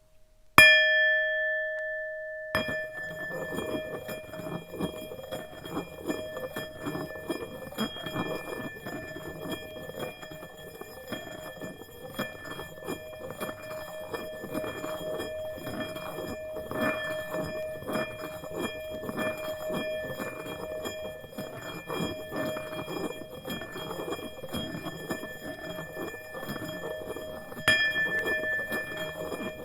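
Tibetan singing bowl struck once, ringing with several steady overtones. Then it is kept singing with a pulsing rubbing texture under the ring, as from a mallet circling the rim, and struck again near the end.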